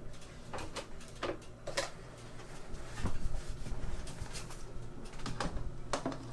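Metal baking tray knocking and clanking as it is carried and slid into a small galley oven, a handful of sharp clanks over a steady low hum.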